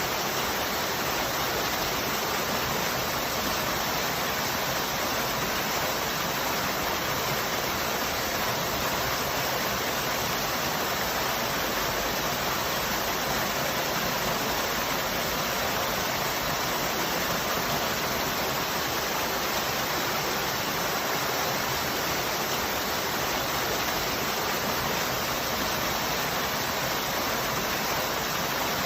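Waterfall: the steady, even rush of falling water, unchanging throughout.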